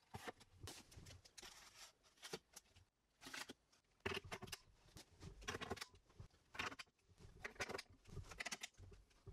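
Faint handling clicks and clatter: plastic parts bins set onto a plywood shelf, then pneumatic nailers snapped by their fittings onto air-hose quick couplers, a series of short separate clicks and rattles.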